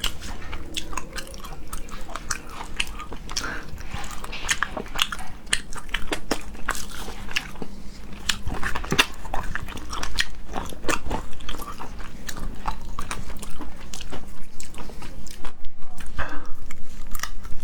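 Close-miked eating of a spicy rabbit head: steady biting, crunching and chewing, a dense run of small sharp cracks as bone and cartilage are bitten through.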